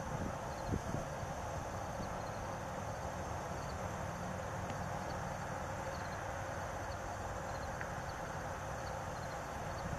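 Steady outdoor background noise, a low rumble and even hiss, with faint high ticks repeating throughout and a couple of soft low thumps in the first second. The hawks do not call.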